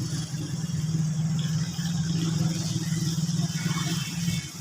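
A motor vehicle engine running steadily, a continuous low hum, with a steady high hiss alongside.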